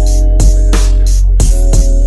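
Music track with a heavy bass, held chord tones and a beat of sharp drum hits.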